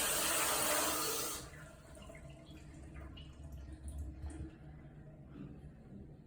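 Toilet flushing: a loud rush of water that cuts off sharply about a second and a half in, leaving faint trickling and drips.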